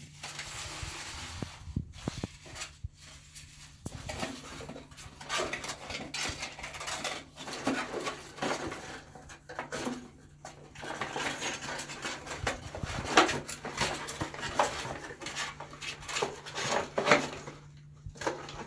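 A pet hedgehog rummaging through a cardboard box of paper rolls, a bottle and packaging: irregular rustling and crinkling of paper and cardboard, mixed with light knocks and clatter as it shoves the items about.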